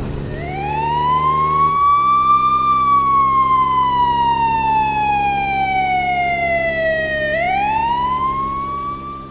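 A siren wailing: its pitch rises over about two seconds, falls slowly for about five, then rises again near the end, over a steady low hum.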